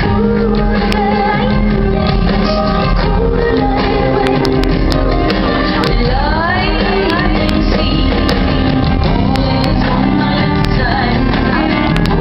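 A live band playing loudly, with a woman singing, recorded from the audience with rough, low sound quality.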